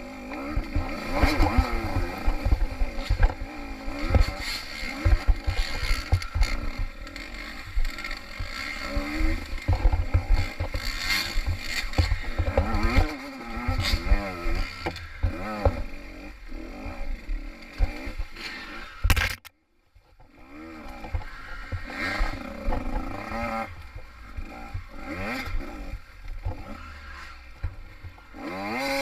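Small-bore two-stroke enduro dirt bike engine revving up and down in quick bursts as it is ridden through mud, pitch rising and falling constantly, over a steady rumble of bumps and knocks. The sound cuts out completely for under a second about two-thirds of the way through.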